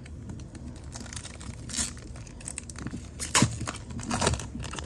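Foil wrapper of a Prestige football card pack crinkling as it is picked up and handled, with a few louder crackles about two, three and a half and four seconds in.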